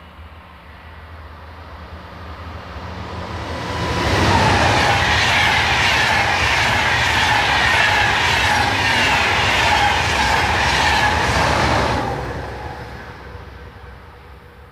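A Deutsche Bahn Intercity passenger train passing at speed. The rushing rolling noise rises as it approaches and stays loud for about eight seconds with a quick, regular clatter of wheels. It then fades as the train moves away.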